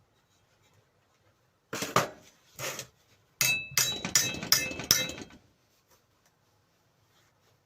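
Metal clinking and knocking: two knocks, then a quick run of about seven ringing metal-on-metal strikes, roughly four a second, from tools and grinder parts.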